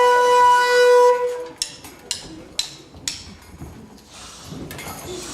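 A loud, steady horn-like buzzer tone, set off by the forbidden button, holds for about a second and a half and stops. Then four short hissing whooshes follow, about half a second apart.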